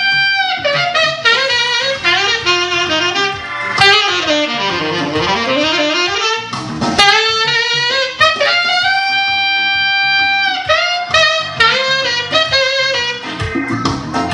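Saxophone playing a jazzy melody over a backing track with drums: quick runs and a glide, then one long held note a little past the middle.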